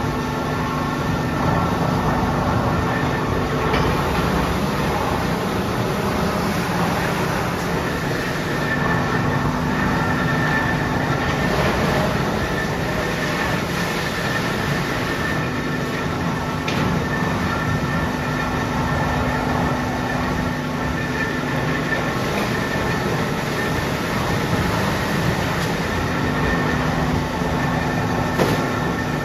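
Tannery machinery running steadily: a dense, even mechanical noise with a low hum that cuts in and out every few seconds.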